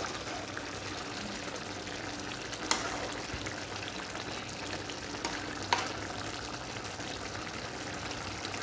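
Chicken sotanghon soup bubbling steadily in a pan while a wooden spatula stirs it, with two light clicks about three seconds apart.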